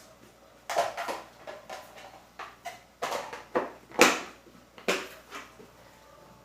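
A quick run of knocks and clatters, the loudest near the middle, as kitchen things are handled and set down.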